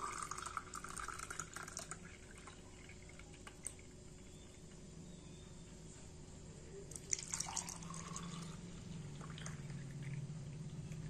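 Spiced buttermilk poured from a steel vessel into a drinking glass, splashing and gurgling as the glass fills. A second pour into another glass begins about seven seconds in.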